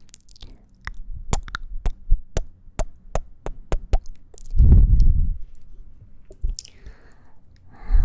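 ASMR mouth sounds close on the microphone: a quick run of wet kissing and sucking smacks, then a loud low rush of warm breath against the mic about halfway, and a softer breath near the end.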